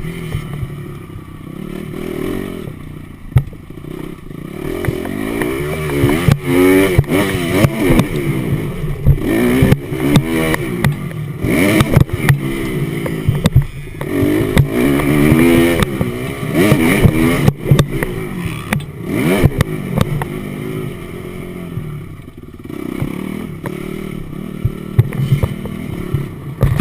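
Motocross bike engine revving up and down over and over while being ridden, its pitch rising and falling every second or two, with frequent knocks and clatter from the bike. Heard from a camera mounted on the bike.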